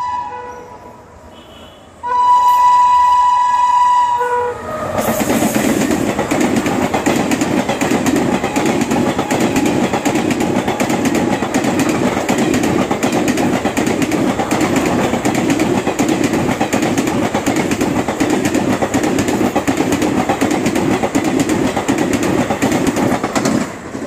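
An Indian express train's locomotive horn sounds twice: a blast ending just after the start, then a second, louder blast lasting about two and a half seconds. The train then passes at speed, its coach wheels giving a steady rhythmic clickety-clack over the rail joints until the sound cuts off just before the end.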